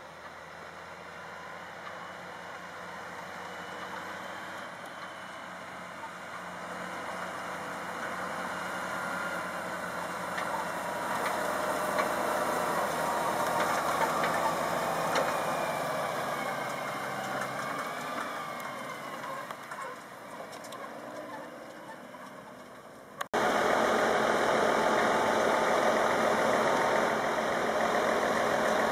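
Fendt 936 Vario tractor's six-cylinder diesel pulling a tridem slurry tanker, growing louder as it approaches and passes, then fading away. About 23 seconds in it cuts abruptly to a steady, louder engine run close by.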